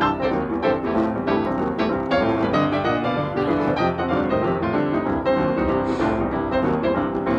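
Background music: a piano tune of quick, even notes that plays without a break.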